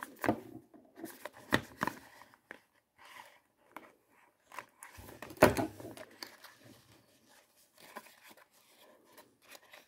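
Small cardboard perfume box handled and its end flap worked open: scattered light paper clicks, scrapes and rustles, with one louder knock about five and a half seconds in.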